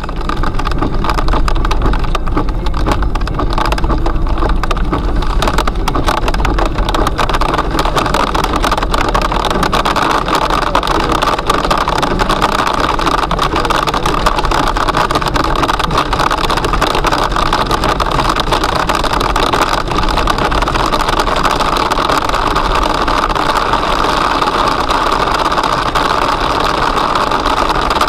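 Marble-sized hail hitting the car's roof and windscreen, a dense, unbroken clatter heard from inside the cabin, with the car's running and road noise underneath. It starts suddenly and keeps on steadily.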